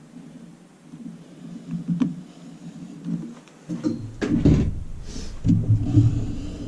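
Handling noises: a single click about two seconds in, then thumps and rubbing from about four seconds in, over a faint steady low hum.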